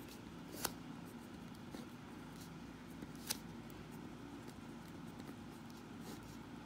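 Pen writing on paper: faint short scratching strokes, with two sharp clicks a few seconds apart, over a low steady background hum.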